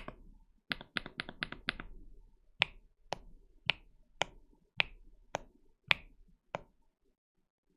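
Keystrokes on an AKKO MU01 mechanical keyboard with KD200 switches: a quick run of about six keys, then single keys pressed one at a time about every half second, eight in all, stopping about a second before the end.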